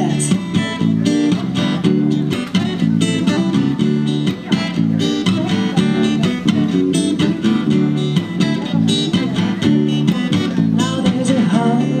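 Steel-string acoustic guitar strummed in a steady rhythm.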